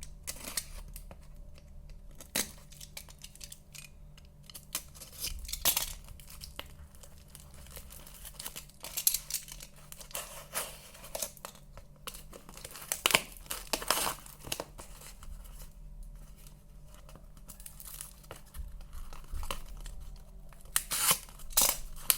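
Parcel packaging being opened by hand: wrapping tearing and crinkling in irregular bursts, with louder rips now and then.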